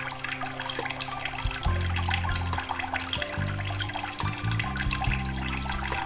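Water trickling and splashing into an aquarium from the spouts of a small decorative waterfall, over background music with sustained low notes.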